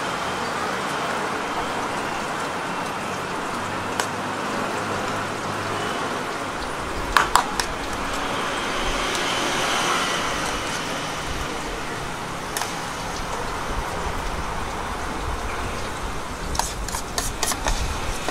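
Steady street background noise with a few sharp clicks and taps: a loud cluster about seven seconds in and a quick run of them near the end.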